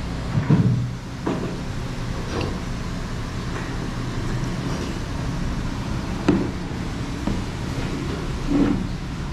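Steady low hum of street traffic, with a few short knocks and clinks as condiment bottles and a metal shaker are handled on a table. The loudest is a dull thump about half a second in.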